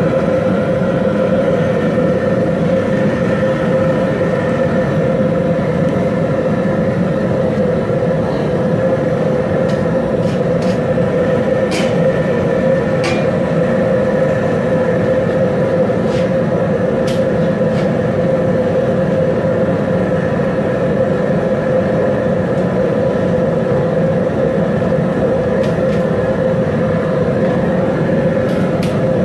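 Large aluminium stockpot of crawfish-boil water at a hard rolling boil with potatoes in it, a loud, steady rumbling churn of bubbling under the cooker's heat.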